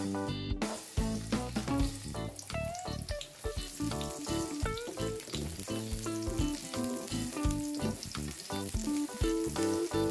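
Sliced red onions frying in hot oil in a nonstick pan: a steady sizzle that starts about half a second in as they hit the oil, while they are stirred.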